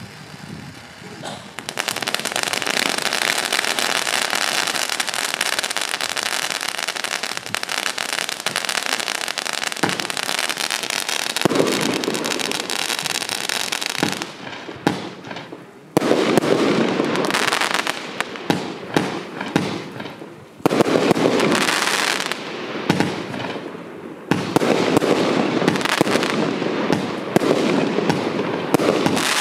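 Lesli Karma Booster 122-shot compound firework battery firing. It starts with a dense, continuous crackling stretch lasting about a dozen seconds, then shifts to rapid volleys of shots and bursts with brief lulls.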